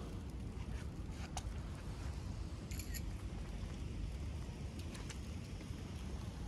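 Steady low rumble of wind on the microphone, with a few faint clicks and a short high rattle about three seconds in.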